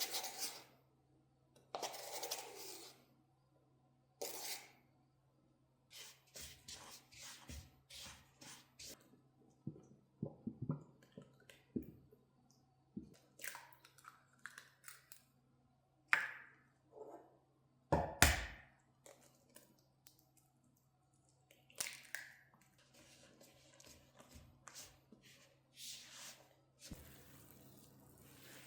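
Objects being handled by hand: scattered light clicks and knocks with a few brushing sounds, and one heavier knock about two-thirds of the way through. A steady hiss comes in near the end.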